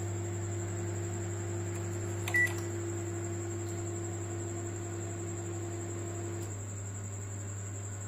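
Microwave oven running in convection mode: a steady low hum from its fan and motor, with a higher steady tone that drops out near the end. One short, high beep from the control panel about two and a half seconds in.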